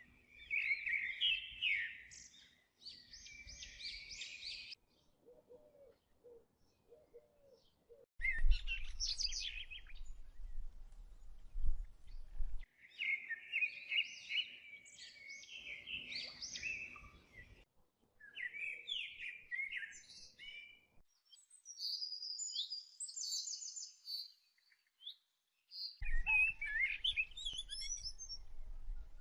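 Several small birds chirping and singing, with quick trills and twitters. They come in stretches that cut off suddenly, with short gaps between them.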